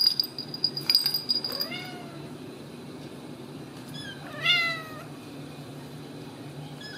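A metallic jingling rattle with sharp clicks over the first second and a half. Then a Ragdoll cat meows: one rising-and-falling meow about two seconds in, and near the middle a short chirp followed by a louder, falling meow.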